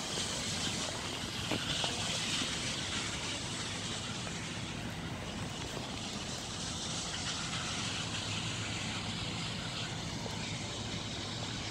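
Steady rumble and hiss of vehicles, with a constant low engine hum underneath.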